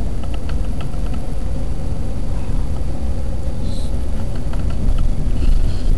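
Car driving, heard from inside the cabin: a steady low rumble of engine and road noise, with a few faint light clicks.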